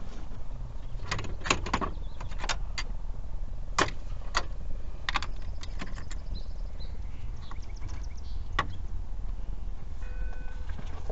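Irregular sharp metallic clicks and knocks of hand tools and parts being worked during an engine teardown, over a steady low rumble.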